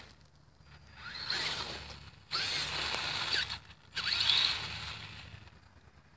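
WLtoys 10428-A RC monster truck driving in three short bursts of throttle: the electric motor and geared drivetrain whine up and down as the tires scrabble over loose gravel on asphalt.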